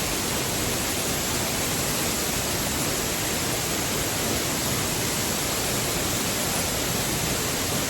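Waterfall, a steady loud rush of falling water heard up close.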